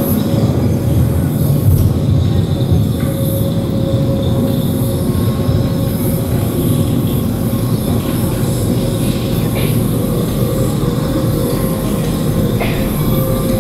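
Underwater hydrophone recordings played over loudspeakers: a loud, dense, steady low rumble with a thin steady tone held above it and a few faint clicks higher up.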